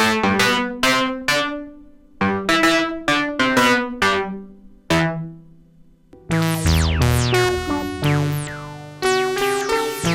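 UDO Audio DMNO hybrid polyphonic synthesizer playing a plucked, bright patch: a run of short notes, each with a sharp attack that dies away quickly. About six seconds in, a fuller passage of held chords with sliding upper tones and a deeper bass takes over.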